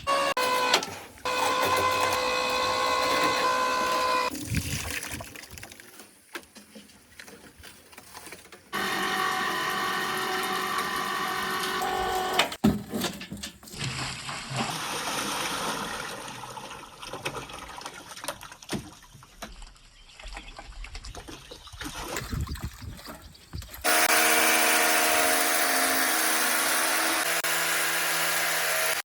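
A motor-driven machine running in several separate stretches, each a steady pitched hum that starts and stops abruptly, with quieter scraping and knocking noise between them.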